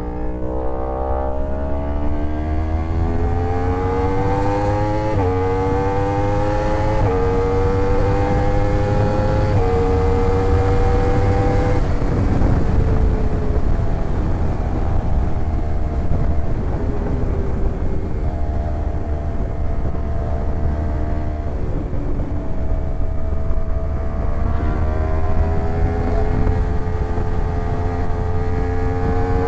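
Yamaha R1 sport bike's inline-four engine pulling through the gears, its pitch climbing and then dropping sharply at each of three upshifts. About twelve seconds in it eases off and cruises, then builds speed again near the end, with a steady low wind rumble underneath.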